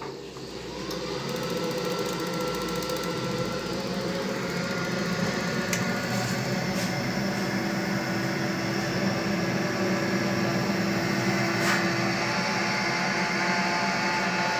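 Viessmann Vitopend 100 A1JB gas boiler running just after being switched on. A steady hum builds over the first two seconds, with a whine that rises and then holds, and a few sharp clicks. The hum comes from the boiler's three-way valve, which the technician puts down to its rust-coated stem sticking and possibly not seating tightly.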